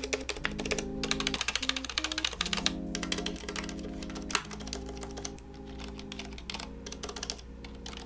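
Keys with stabilizers on a Keychron K3 low-profile optical keyboard pressed over and over, quick clacks in runs with a slight rattle, only a little noisier than its regular keys. Background music plays under them.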